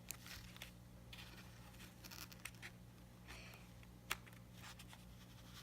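Faint rustling and a few small clicks of hands handling small plastic parts and wire leads, with one sharper click about four seconds in, over a low steady hum.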